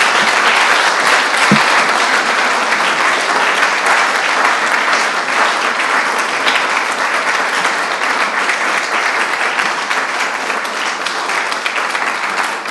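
Audience applauding: many people clapping steadily, easing a little near the end.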